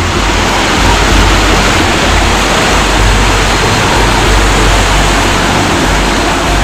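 Loud, steady rushing noise with an uneven low rumble underneath.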